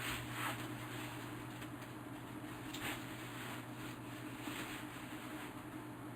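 Soft, brief rustles and light handling noises, a few times, over a steady low hum.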